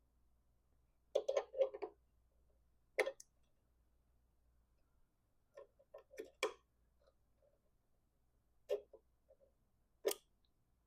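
Light clicks and taps of hand tools on small metal parts, coming in about five short clusters, as a cotter pin is fitted to the motorcycle's front brake cable fitting.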